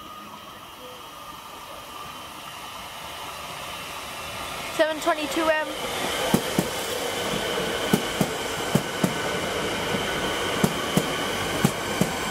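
Siemens Nexas electric multiple unit approaching and running in along the platform: a growing rumble with a steady motor whine, then pairs of sharp clacks as the wheelsets cross rail joints, about one pair a second.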